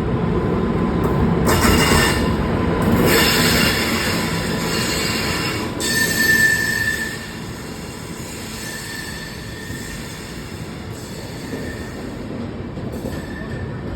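Rajdhani Express passenger train running on the track, a steady rumble and hiss with several short high wheel squeals. It is louder in the first half and quieter after about seven seconds.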